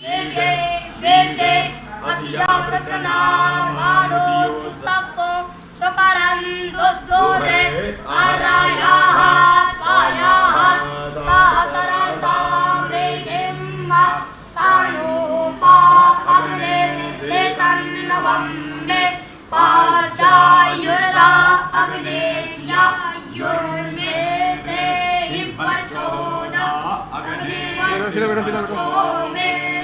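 Young Vedic students (batuks) chanting Sanskrit Vedic mantras together in a sung, melodic recitation. Several voices overlap, and a low note is held underneath in stretches.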